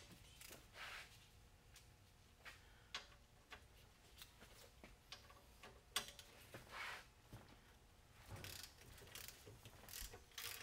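Faint clicking of a hand ratchet wrench backing the nut off a leaf spring's center bolt, in scattered short runs that grow quicker and more regular near the end.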